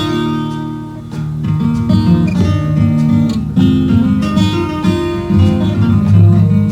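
Instrumental break of a country song: acoustic guitar strumming and picking, with no singing.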